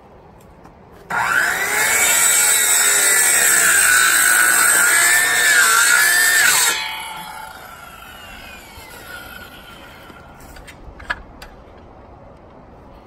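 Circular saw starting up and cutting through wooden fence pickets for about six seconds, its pitch dipping and recovering under load, then winding down after the cut. A single sharp click comes near the end.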